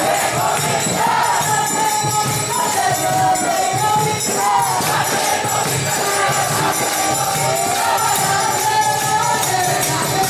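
A crowd of devotees singing a kirtan together, with metal hand cymbals jingling steadily throughout.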